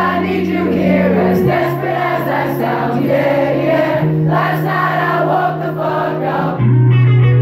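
Live pop music: piano and keyboard chords over a sustained low bass note that changes pitch every couple of seconds, with voices singing over it.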